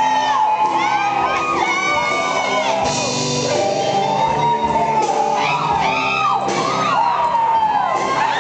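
Electric guitar solo with many bent, gliding notes over a live rock band, with audience shouts and whoops in a large hall.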